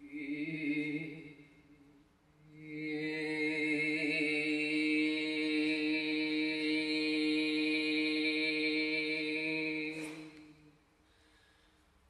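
A voice chanting a low drone: a short held note at the start, then one long note held steady on the same pitch for about eight seconds, rich in bright overtones. A faint click comes just before the long note ends.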